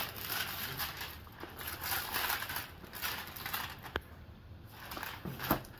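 Thin plastic wrap crinkling and rustling as it is peeled off a cardboard model-kit box, with the box being handled, and a single sharp click about four seconds in.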